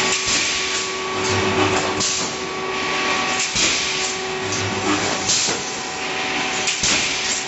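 Automatic rebar mesh welding machine running through its cycle: a steady machine noise with a sharp hiss about every one and a half to two seconds and a brief low hum now and then.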